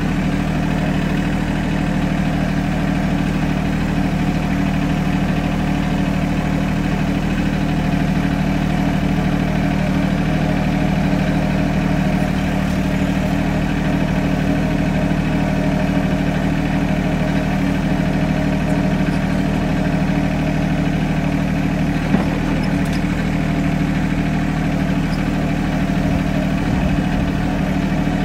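Diesel engine of a Mahindra compact tractor with front loader running steadily at low revs, heard from the driver's seat.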